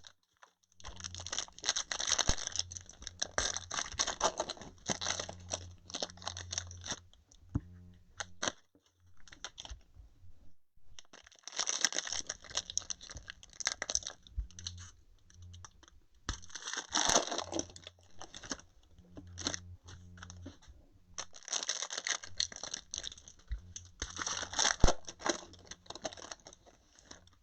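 Plastic wrapping crinkling and tearing by hand in several bursts with short pauses: a sealed box of 2020 Panini Contenders Baseball cards and its card packs being opened.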